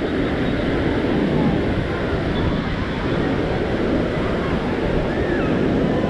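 Steady wash of ocean surf breaking on a sand beach, with wind buffeting the microphone and faint voices of people on the beach.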